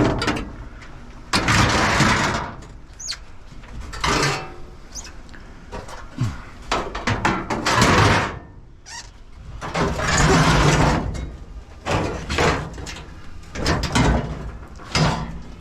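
Scrap being handled and shoved into a pickup truck bed: a series of scrapes and clatters, each about a second long, coming every couple of seconds.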